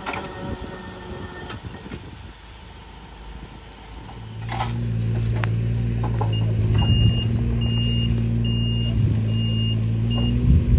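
Engine idling steadily, starting abruptly about four seconds in, with a high electronic beeper sounding five times in an even on-off rhythm like a vehicle's reversing alarm.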